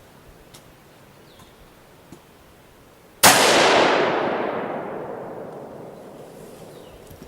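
A single shot from a home-built AR-15 rifle with a 5.56 NATO barrel, its echo dying away over about four seconds. It is the first test-fire round through the newly built rifle.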